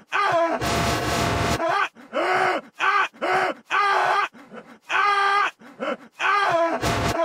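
A cartoon man's voice groaning and moaning in pain over and over, each groan bending up and down in pitch, with a sharp hissing breath through the teeth about a second in and another brief one near the end.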